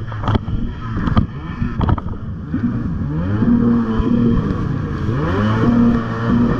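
1994 Tiger Shark 640 jet ski's two-stroke engine running under throttle while riding over choppy water. Hull slaps and spray knock sharply in the first couple of seconds, then the engine's pitch rises and falls a couple of times as the throttle is worked.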